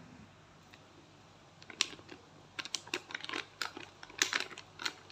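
Plastic packet of cornstarch crinkling as it is squeezed and shaken over a mixing bowl: an irregular run of soft clicks and crackles starting almost two seconds in.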